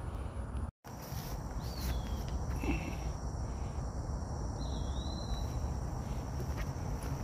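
Steady high-pitched insect chirring from crickets or other summer insects, with two short bird chirps and a low rumble underneath. The sound drops out completely for a moment just under a second in.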